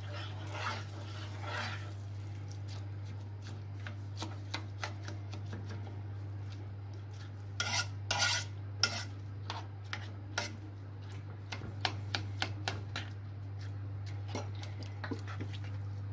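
Metal spoon stirring fried vermicelli and freshly added water in a metal pot, clicking and scraping irregularly against the pot's sides and bottom, with a few louder scrapes about eight seconds in. A faint sizzle and a steady low hum run underneath.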